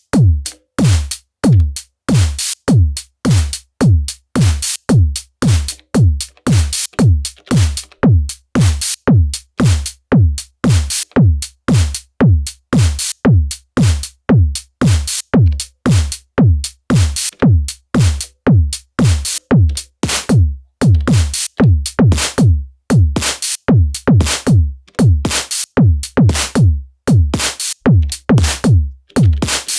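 Elektron Digitone FM synthesizer playing an electronic drum pattern: a kick that drops sharply in pitch on each beat, about two a second, with bright, crisp hits layered on top.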